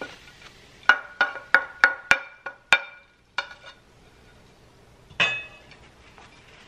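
Wooden spoon knocking against a glass bowl and a stainless steel wok as cauliflower rice is scraped out into the pan: a quick run of about seven ringing taps, two fainter ones, then a single louder clunk about five seconds in.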